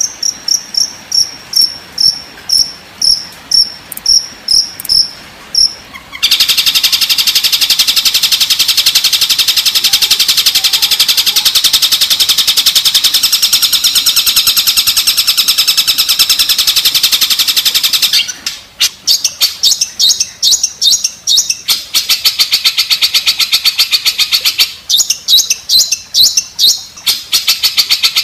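Recorded songbird calls played as masteran training song for long-tailed shrikes. They open with rapid repeated high chirps. About six seconds in, a loud, dense, very fast high trill takes over for some twelve seconds, then short runs of repeated chirps come back.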